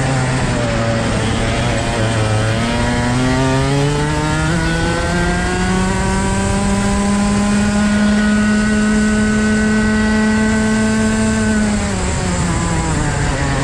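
Rotax Max 125cc two-stroke kart engine heard onboard at speed. The revs dip low through a corner, climb steadily from about two and a half seconds in to a high, held pitch down the straight, then fall away near the end as the throttle is lifted.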